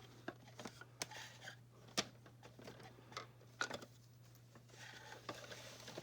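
Light, irregular clicks and taps of small plastic toy pieces being handled, such as tiny hangers and wardrobe parts, over a steady low hum.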